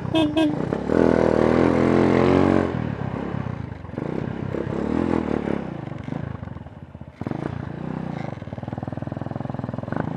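Mojo 200 motorcycle running through a gutted cat-delete exhaust with its inner silencer baffle removed, revving up hard about a second in, then running on at road speed with a rushing noise underneath.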